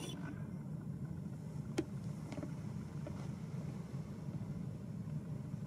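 Steady low background hum, with one soft click of stainless-steel cutlery set down on a cloth-covered table a little under two seconds in, followed by two fainter clicks.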